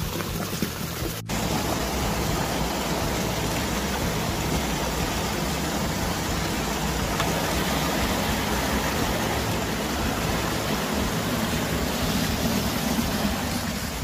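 Water rushing steadily down a concrete farm drainage ditch. It starts abruptly just over a second in.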